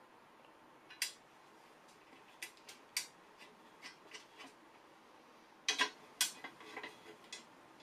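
Light metal clicks and taps of small bolts being handled and set into a windage tray over an engine's crankcase. There are scattered single clicks at first, then a quick run of louder clicks a little before the end.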